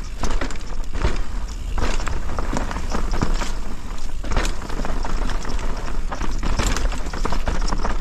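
Specialized Kenevo electric mountain bike rolling down a rough dirt trail: tyre and trail noise with frequent irregular clattering knocks as the bike rattles over bumps, over a low rumble.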